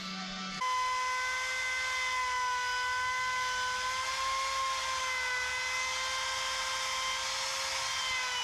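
Compact trim router running at full speed as it cuts along the edge of a wooden desktop: a steady, high motor whine that starts about half a second in.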